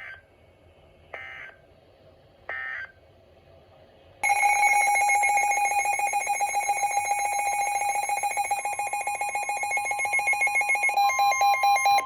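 Three short bursts of weather radio data tones, the end-of-message code, then from about four seconds in a weather radio receiver's alarm beeping loudly and rapidly as a severe thunderstorm warning alert comes in. A steady warning tone joins underneath partway through, and the beeping changes pattern near the end.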